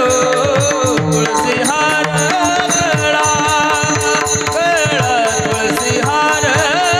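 Marathi kirtan devotional music: a wavering melodic line over a steady, quick beat of hand cymbals and drum.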